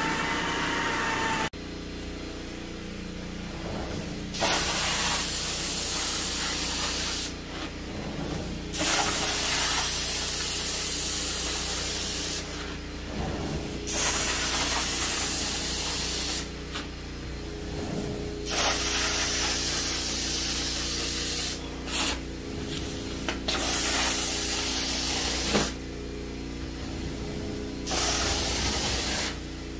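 Carpet-cleaning extraction wand spraying and sucking water from an area rug in repeated strokes, each a loud hiss of one to three seconds that starts and stops abruptly, over the steady hum of the extractor's vacuum motor. A whirring machine with a wavering pitch cuts off suddenly about a second and a half in.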